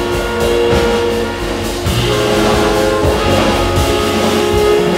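Jazz ensemble playing live: held chords with drum kit and cymbals and double bass underneath.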